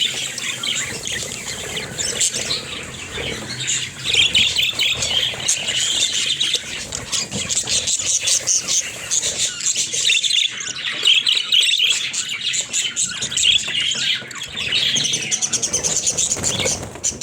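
Pet budgerigars chirping and chattering loudly and without pause, a dense stream of quick high-pitched warbles and chirps.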